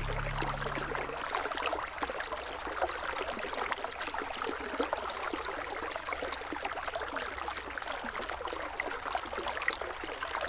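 River water flowing: a steady rush dotted with many small splashes. The low notes of background music die away in the first second.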